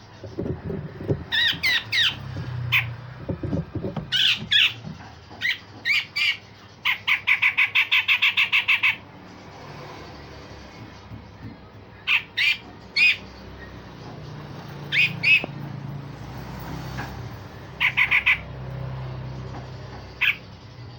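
Grey-cheeked bulbul (cucak jenggot) calling: harsh, scratchy squawks and sharp single notes in irregular bursts. About seven seconds in comes a fast run of about a dozen evenly spaced notes lasting two seconds. A low rumble lies under the first few seconds.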